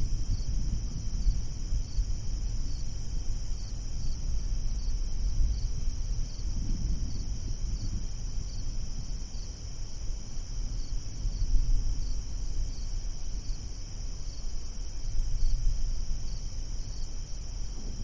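Crickets chirping steadily at a high pitch, over the low rumble of distant thunder, which swells about seven seconds in and again at the very end.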